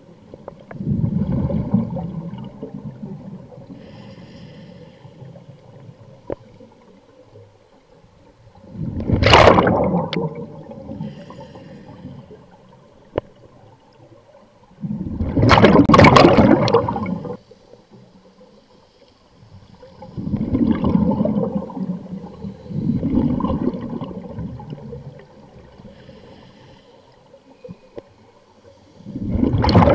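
Scuba diver breathing through a regulator underwater: bursts of exhaled bubbles burbling every few seconds. The loudest come about nine seconds in, around fifteen to seventeen seconds in, and at the very end.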